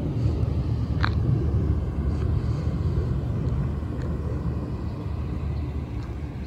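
Wind buffeting the microphone outdoors: a low, fluctuating rumble. A short rising chirp sounds about a second in.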